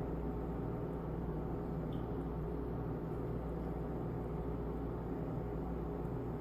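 Steady low hum with a few fixed tones and no change throughout: kitchen room tone.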